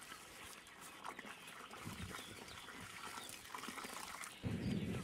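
Water trickling from a garden hose into a planting hole in sandy soil, faint, with scattered animal calls. About four and a half seconds in, a louder, lower sound starts.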